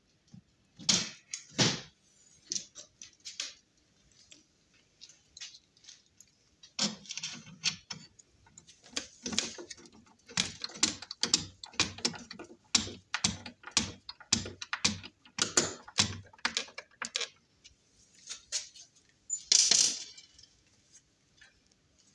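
Hand screwdriver driving a screw to fix a plastic enclosure to a wooden panel: a long run of quick clicks and small rattles, about two or three a second. There are a couple of louder knocks about a second in and a louder rattle near the end.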